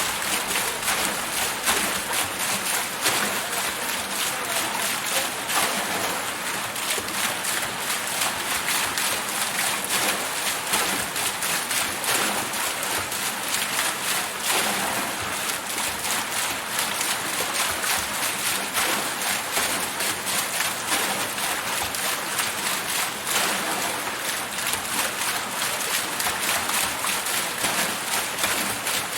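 Water wheel turning in flowing water, its paddles churning and splashing in a steady rush, with a constant patter of small splashes.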